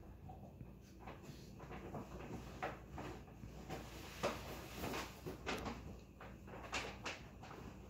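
A dog moving about and nosing at something, making irregular soft knocks and scuffs, the loudest about four seconds in.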